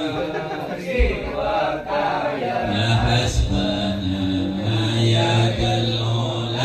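A group of men chanting Islamic devotional verses (sholawat/dzikir) together in unison, holding long notes. A short thump about a second in.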